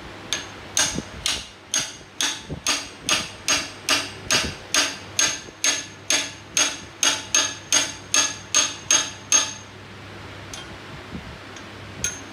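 Hammer tapping a part into place on an engine during a rebuild: about twenty evenly spaced strikes, a little over two a second, each with a short high ring. The tapping stops near the end, followed by a few light clicks.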